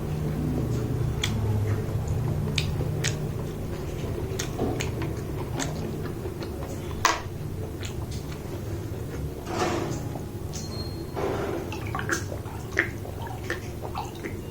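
Close-up eating sounds: wet chewing and lip smacks in irregular short clicks, with a few longer wet slurping noises about two-thirds of the way through, over a steady low hum.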